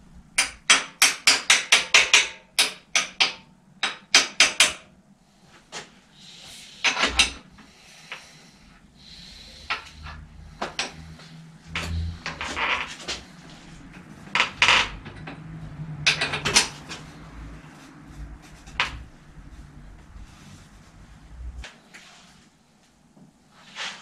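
Metal tool work on a bicycle's bottom bracket as it is taken apart to get at the bearing: a quick run of sharp metallic taps near the start, then scattered knocks and scrapes.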